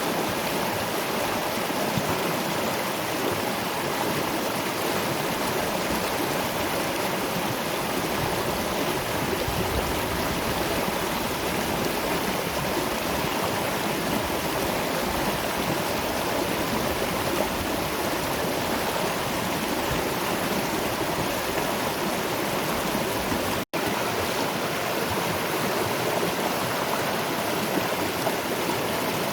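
Steady rushing of a waterfall and river. The sound cuts out for a split second about three-quarters of the way through, then resumes unchanged.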